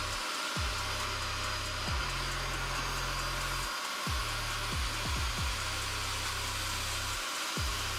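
Portable carpet spot cleaner (Bissell SpotClean) running steadily, its suction motor whirring while the nozzle extracts the carpet. Under it, background music with a deep bass line and kick drums, several in quick succession about five seconds in.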